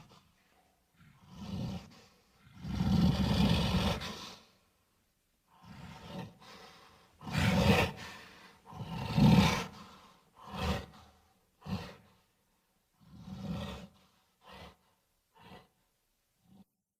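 Gorilla creature sound effects: a series of about ten separate roars, the longest lasting about a second and a half early on the way, the loudest two in the middle, tailing off into short, fainter calls near the end.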